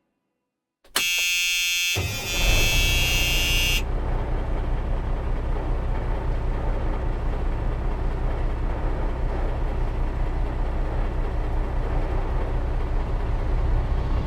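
A high, buzzing whine starts suddenly about a second in and stops a couple of seconds later, as a car engine starts and then runs steadily with a low rumble.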